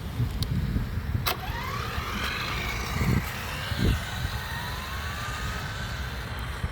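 Brushless electric motor of a 1:10 Kyosho Fazer MK2 RC car whining, its pitch sliding as the car speeds up and slows, with a click about a second in. Two low thumps come around three and four seconds in, over a steady low rumble.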